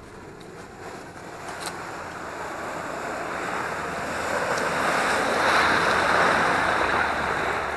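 An off-road vehicle driving through swamp water and mud: a rushing, splashing noise that builds steadily and is loudest about two thirds of the way through.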